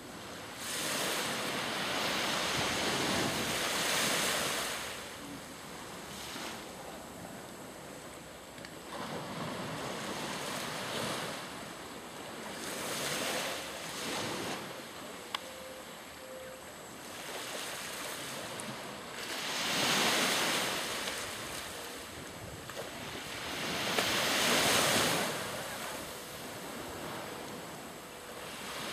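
Small sea waves breaking and washing onto the shore, swelling and fading every few seconds, with one sharp click about halfway through.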